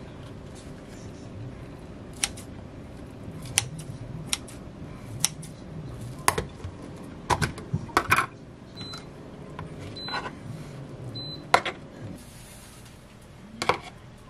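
Kitchen handling: scattered clicks and clinks as a plastic food container and its lid are handled and food is placed into a ceramic dish on the counter. Three short electronic beeps sound about a second apart in the middle.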